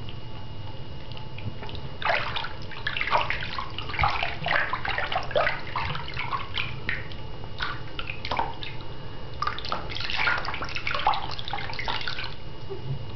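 Shallow water splashing and sloshing in a sink as a hand scoops it over a bathing ferret, in two spells of quick splashes with a short pause between. A faint steady hum runs underneath.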